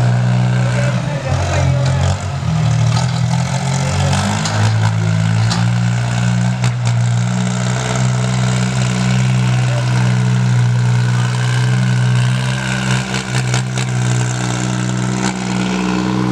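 Sonalika DI 22 tractor's diesel engine running under load while pulling a disc harrow. Its note drops about a second in and recovers around four seconds in, then holds steady.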